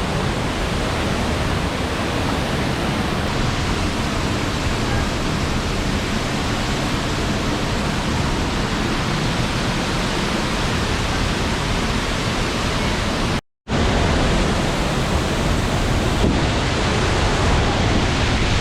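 Large waterfall heard up close: a loud, steady rush of falling water. It breaks off for a split second about two-thirds of the way through, then carries on unchanged.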